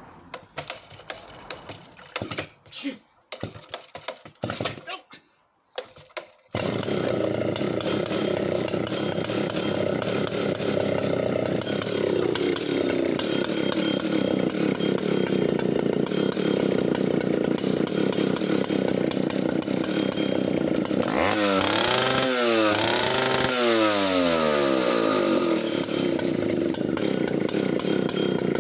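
Scattered knocks and clatter, then the Solo 60135's 92cc two-stroke chainsaw engine is running: fast at first, then dropping to a low idle. Near two-thirds of the way through it is revved up and back down twice in quick succession before settling back to idle.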